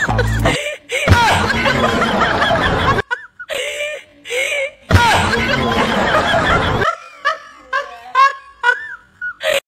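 Laughter from several voices at once, in dense stretches that break off abruptly a few times. Near the end it thins to short separate laughs.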